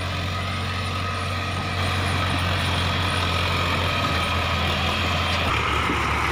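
Steady low tractor engine running sound, with a slight shift in its low pitch about five and a half seconds in.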